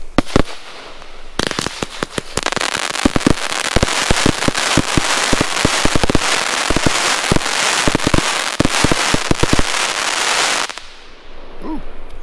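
A 25 mm compound fireworks cake firing its finale. After a couple of separate shots, it goes into a rapid, dense volley of reports over heavy crackling for about nine seconds, then stops abruptly.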